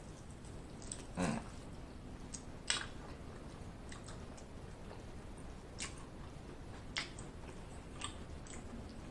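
Eating chicken wings: wet chewing with a scattering of short mouth smacks and clicks as meat is bitten and pulled off the bone, the loudest about a second in and again near three seconds in.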